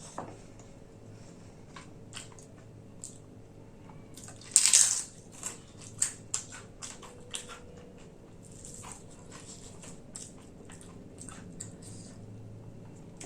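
Close-miked eating: mouth clicks and chewing, with one loud crunchy bite about four and a half seconds in, followed by a few smaller crunches.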